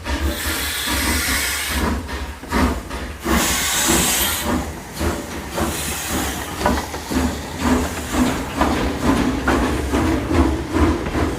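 Steam locomotive pulling away: two long hisses of escaping steam in the first few seconds, then steady exhaust chuffs at about two beats a second over a low rumble.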